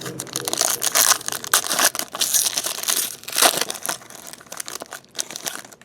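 Wrapper of a pack of trading cards being crinkled and torn open by hand: a dense run of crackling with sharp crisp snaps, loudest in the middle and dying away near the end.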